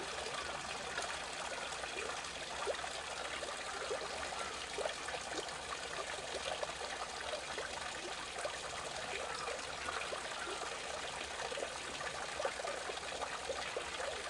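Running water trickling and bubbling steadily, like a small stream or water channel.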